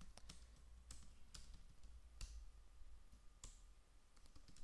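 Faint, sparse computer keyboard keystrokes: a few separate clicks, each a second or so apart, with a quicker cluster near the end, over a low steady hum.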